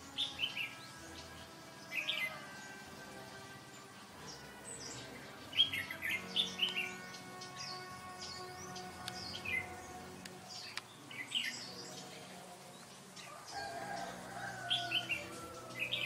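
Red-whiskered bulbul calling: short bursts of quick, falling chirps, repeated every couple of seconds.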